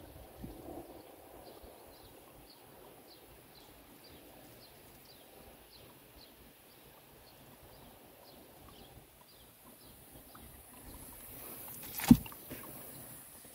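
A bird calling faintly in a steady series of short, high, falling chirps, about two a second, with one sharp knock near the end.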